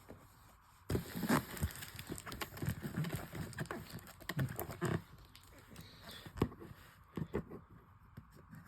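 Irregular knocks, clicks and rustling begin about a second in and thin out near the end, the sound of things being handled close to the microphone.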